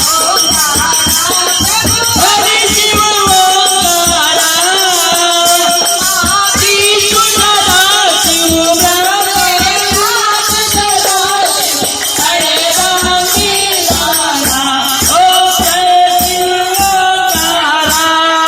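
Devotional song: a voice singing a wavering melody over a steady, quick percussion beat.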